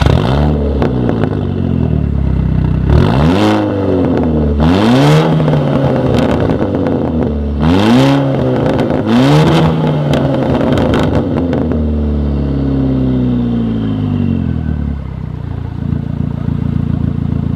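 Volkswagen Golf engine revving hard in four quick rising-and-falling sweeps, each starting with a sharp burst of noise. Then a long falling run-down, settling to a steadier lower engine note near the end.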